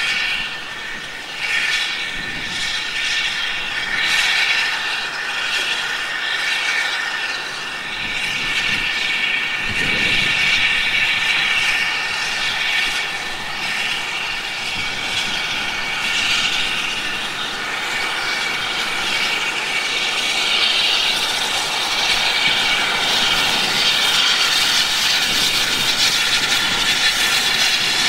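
Steam locomotive No 3 Twizell hauling a train of coaches past at close range: a steady hiss and rush of steam and running noise, growing a little louder as the coaches pass, with a single low thud about ten seconds in.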